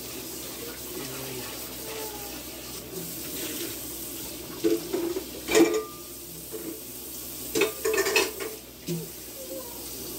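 Wooden spoon stirring a thick coconut-milk turkey stew in a stainless steel stockpot, knocking against the pot's side in several sharp clacks, the loudest about halfway through and a cluster a couple of seconds later. A steady low bubbling hiss of the simmering stew runs underneath.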